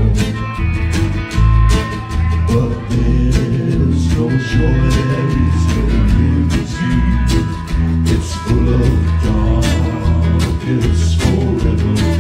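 Live country-rock band playing a song: strummed acoustic guitar, electric guitars and drums keeping a steady beat, with a man singing lead.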